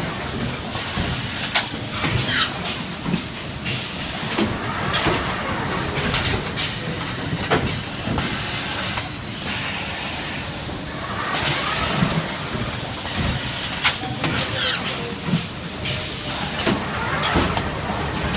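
Automatic high-frequency PVC welding line running: steady machine noise with many sharp clicks and clacks of moving parts, and two spells of loud hissing air, one at the start and another about ten seconds in.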